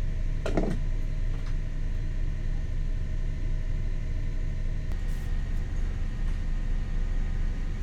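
Motor yacht's inboard engine running steadily at cruising speed, a low, even hum heard aboard, with a brief click about half a second in.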